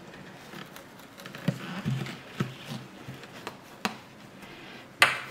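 Handling noise as a speaker's replacement amplifier plate and its wiring are fitted back into the cabinet: scattered light clicks, taps and dull knocks, with one sharp click near the end.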